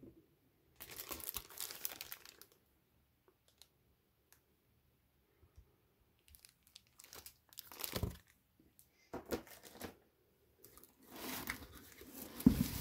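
Plastic sleeves crinkling as bagged CGC comic slabs are handled and pulled from a cardboard box, in several separate bursts. There are a couple of sharp knocks of the hard plastic slabs, the loudest near the end.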